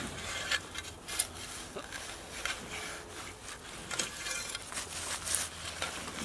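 Metal garden spade scraping and cutting into loose soil as earth is shovelled back into a hole, a handful of irregular scrapes.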